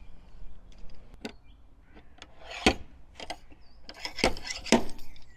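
Slide hammer of a glue-pull dent remover kit knocking as it is worked against a tab glued to the car body panel to pull the dent: a series of sharp knocks, the three loudest in the second half.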